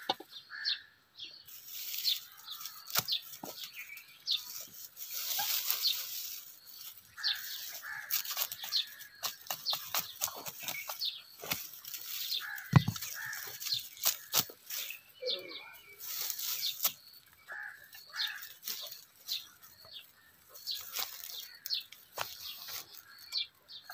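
Dry garlic stalks and straw rustling and crackling in irregular snaps as they are handled and picked through by hand. Birds chirp in the background, and there is one sharp knock a little past halfway.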